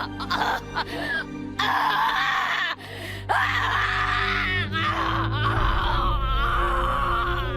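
Anime character voice screaming over background music: a few short yells, then long drawn-out screams with a wavering pitch from about a second and a half in, broken briefly near the three-second mark.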